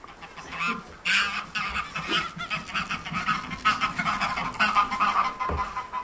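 Greylag geese honking close by, very noisy and persistent: a run of repeated, overlapping calls that starts about a second in and keeps going almost to the end.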